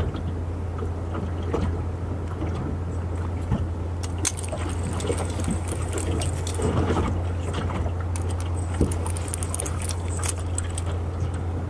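Small raft-fishing reel being wound in, with many light clicks and rattles from about four seconds in, over a steady low hum.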